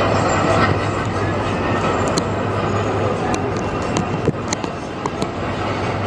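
Steady rushing wind and city noise from a high balcony, with a constant low hum underneath and a few light clicks in the middle.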